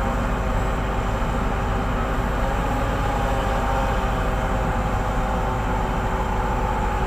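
Hitachi EX2600 mining excavator's diesel power and hydraulics running steadily as it swings to load a haul truck, a continuous heavy drone with faint held whining tones over it, one growing firmer about three seconds in.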